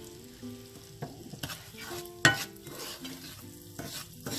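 Metal spoon scraping and knocking against a nonstick frying pan as soft brown sugar is stirred into melted butter, which sizzles in the pan. One sharp knock of the spoon on the pan stands out about two seconds in.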